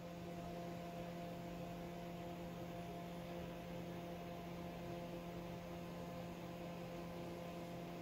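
Steady low hum, with a few fainter higher tones held above it and a faint hiss.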